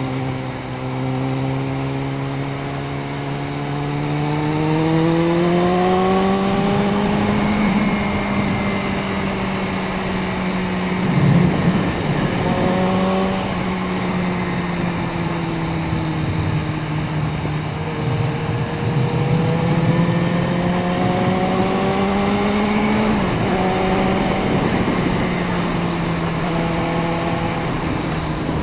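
Suzuki Bandit 650N's inline-four engine under way, heard from the bike over wind and road noise. The engine note climbs steadily under acceleration, breaks briefly at a gear change about eleven seconds in, eases off and rises again, then drops sharply near twenty-three seconds before settling at an even pace.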